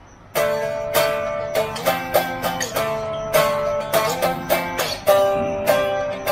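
Electric guitar, plugged straight into an IRIG interface, playing a clean picked riff whose notes ring into one another, starting about half a second in.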